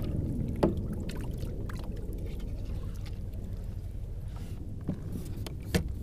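Steady low rumble of wind and water lapping against a kayak hull. A few sharp knocks and clicks come from the fishing rod and reel being handled: one about half a second in and two near the end.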